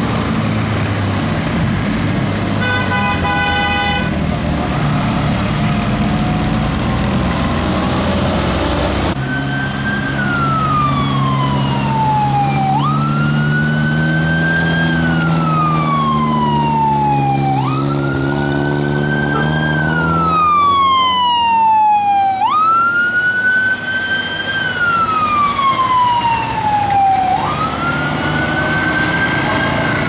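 A vehicle siren wailing: each cycle jumps up in pitch and then slides slowly down, repeating about every five seconds from about a third of the way in, over the noise of passing traffic engines. Before it, a short steady horn blast sounds a few seconds in.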